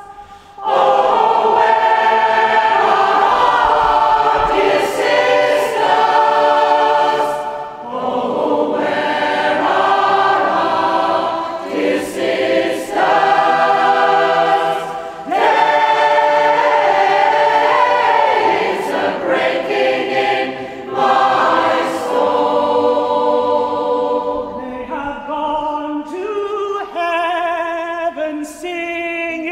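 Mixed community choir, men's and women's voices together, singing a sacred song in long phrases with short breaks between them, softer near the end.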